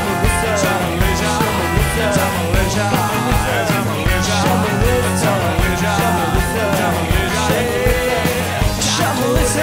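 Live rock band playing: electric guitars, bass guitar and drums, with a lead melody bending up and down in pitch over the rhythm.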